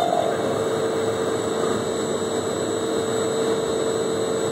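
Tote mixer running steadily as its shaft stirs viscous orange juice concentrate: a continuous mechanical hum with a steady mid-pitched tone and a faint high whine.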